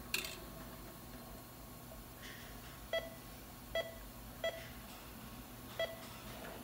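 Four short electronic beeps from a Heidenhain ND 1403 Quadra-Chek readout, one for each point the touch probe takes around the inside of a small hole. The first three come less than a second apart and the last after a longer gap, over a faint room hum.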